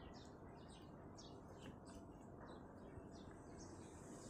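Near silence, with faint bird chirps repeating about twice a second in the background.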